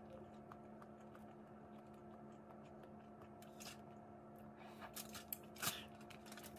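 Boiled crawfish shells being cracked and peeled apart by hand: a few sharp crackles and snaps, mostly in the second half, over a faint steady hum.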